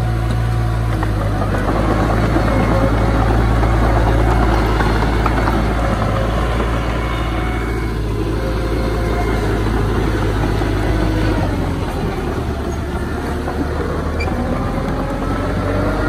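Heavy diesel earthmoving machinery running steadily under load. There is a deep engine rumble with a faint whine over it, and the low note shifts about twelve seconds in.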